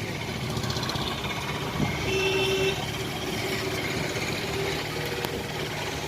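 Outdoor traffic noise: a steady rumble of vehicles, with a short horn-like tone about two seconds in.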